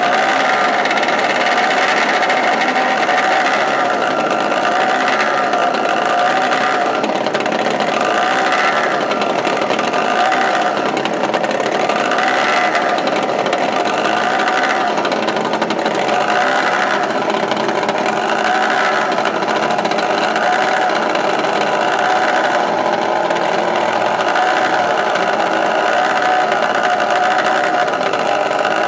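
Several small engines on a hand-built eight-engine helicopter running together at idle: a steady, dense drone that swells and fades about every two seconds.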